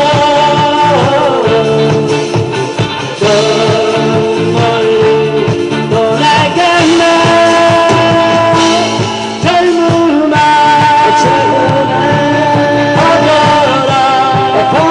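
A man singing a song live into a microphone through a PA, with amplified instrumental accompaniment, the melody moving in long held notes.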